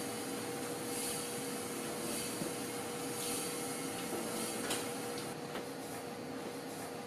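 Steady machine hum and hiss with one constant tone, and soft high swishes about once a second that fade a little about five seconds in.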